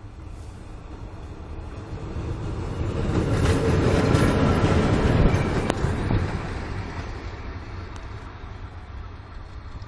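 Krupp-built BB304-class diesel-hydraulic locomotive BB30402 passing close by on the adjacent track. Its engine rumble and running noise build to a peak about four to five seconds in, then fade as it moves away.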